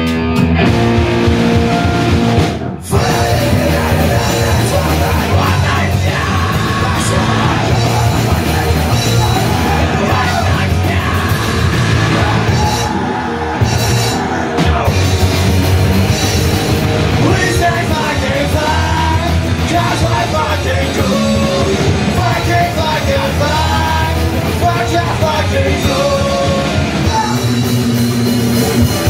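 Punk rock band playing live: distorted electric guitars, bass guitar and drum kit, with a singer's vocals over them. The band cuts out for a split second about three seconds in, then comes straight back in.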